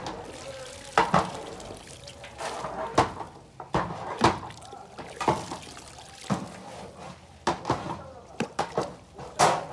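Metal ladle splashing and scooping through raisins soaking in a large aluminium basin of water, with sharp knocks and splashes about once a second and a quicker run of them near the end.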